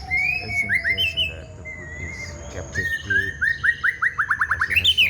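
White-rumped shama (murai batu) singing: clear whistled phrases, then a quickening run of short down-slurred notes from about three seconds in, ending in a higher note.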